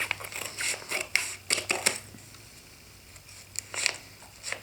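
A package being handled and opened: a quick run of sharp rustles and clicks for about two seconds, a pause, then a few more near the end.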